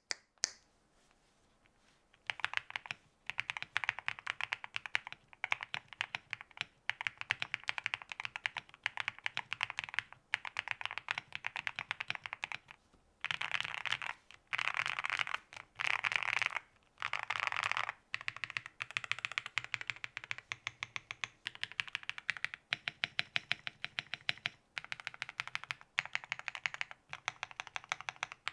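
Custom JOJO Studio M98 mechanical keyboard with FOD Lucky linear switches, a polycarbonate plate, full foam and DPS WDA keycaps, being typed on. A few lone keystrokes open, then a steady stream of typing follows, with the fastest, densest runs in the middle.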